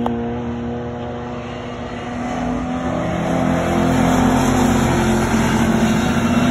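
Jaguar E-type racing car engines running hard on track, holding a steady note, with the sound swelling louder about halfway through as a car comes closer.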